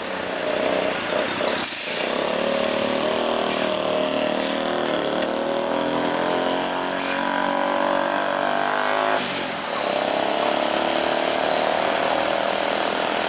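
Heavy diesel truck engine running under load, with several short, sharp hisses of air from the air brakes. The engine note changes about nine seconds in.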